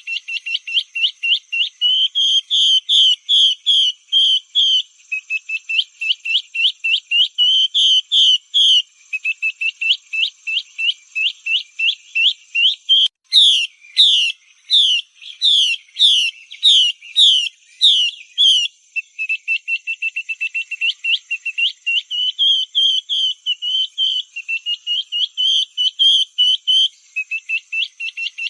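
Female Chinese hwamei calling: a fast, continuous string of short whistled notes, about six a second. Just before the middle it switches to louder, slower sweeping whistles, about two a second, for some five seconds, then returns to the fast string. This is the female's 'yin tang' lure call, used to draw a male hwamei into fighting or singing form.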